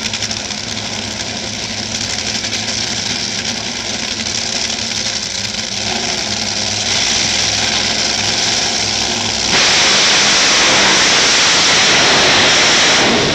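Top Fuel dragsters' supercharged nitromethane V8 engines running at the starting line. About nine and a half seconds in the sound suddenly becomes much louder and harsher.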